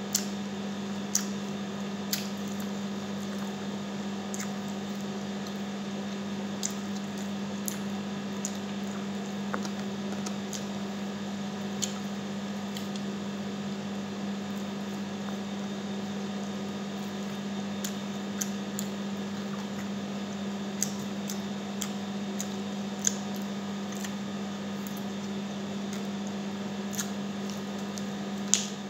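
Close eating sounds of a person eating honey-garlic chicken with her hands: chewing, with scattered sharp lip smacks and finger sucks, a stronger one near the end, over a steady low hum.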